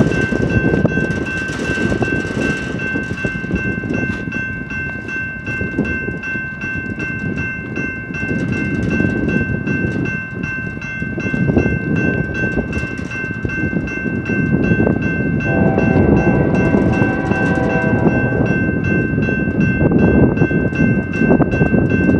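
BNSF freight train led by GE diesel locomotives running past with a heavy rumble that grows louder in the second half, and a steady high ringing tone throughout. The locomotive horn sounds a chord about fifteen seconds in for a couple of seconds, and again near the end.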